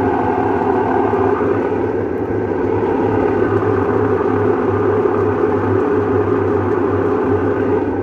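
Whirlpool Cabrio top-load washer spinning in its spin cycle, with a loud, steady hum from a worn tub bearing that is bad and makes a lot of noise.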